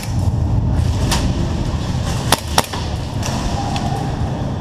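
Airsoft guns firing: a few sharp, separate cracks, the loudest two close together just past halfway. Under them runs a steady low rumble of movement and handling noise on the camera's microphone.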